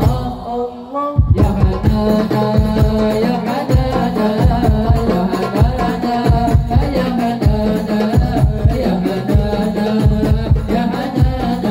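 Hadroh-style hand-drum ensemble, darbuka and frame drums, playing a fast running rhythm under sung melody lines. The drums break off for about a second near the start, then come back in together.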